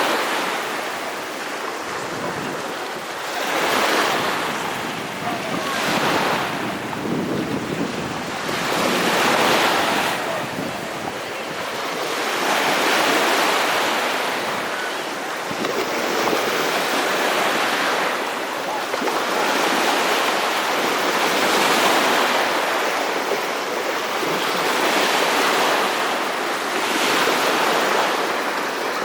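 Sea waves washing in and breaking, surging and easing every two to three seconds, with wind buffeting the microphone.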